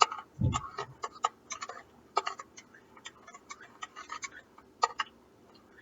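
Spoon clinking against the inside of a mug while stirring hot cocoa mix into hot milk: irregular light clinks, a few a second, with some scraping.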